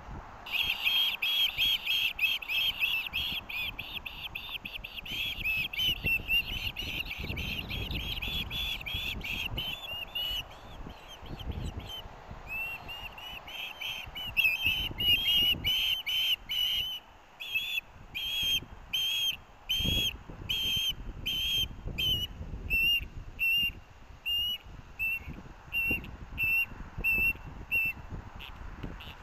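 Ospreys calling: a rapid run of high, piercing chirps that starts about half a second in and later slows to separate calls about a second apart. These are food-begging calls from the nest as an adult arrives with a fish. Wind rumbles on the microphone underneath.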